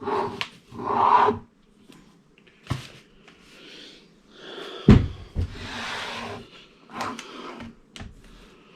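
A heavy 8-litre beer keg being wrestled out of its cardboard box: rustling and scraping of cardboard with several knocks and thumps, the loudest about five seconds in.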